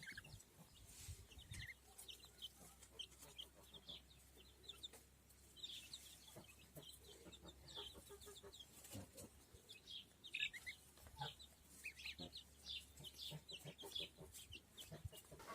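Month-old chicks peeping faintly, with many short, high, falling cheeps scattered throughout.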